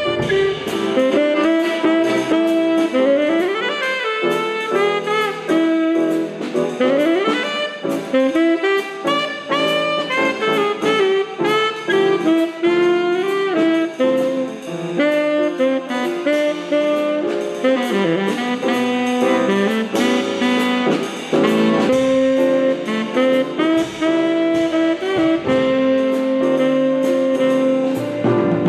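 Instrumental jazz music: a horn-led melody with quick runs and rising glides over a steady ticking cymbal beat.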